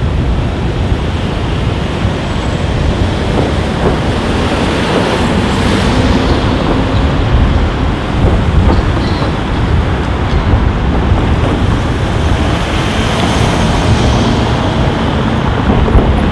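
Gusty wind buffeting a Rode Videomic shotgun microphone behind its stock foam windscreen, high-pass filter on: a loud, rushing rumble heaviest in the low end, the mic's strong low-frequency sensitivity letting the wind through. City street traffic runs underneath.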